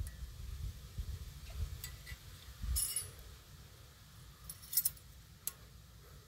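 Light metallic clicks and clinks of brake pad clips being pressed into a new caliper bracket and the bracket being handled. There is a small cluster about three seconds in and the sharpest double click just before the five-second mark.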